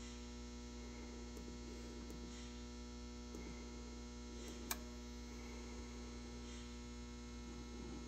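Steady low electrical mains hum, with a few faint clicks as the buttons on a PID temperature controller are pressed to raise its set point, and one sharper click a little past the middle.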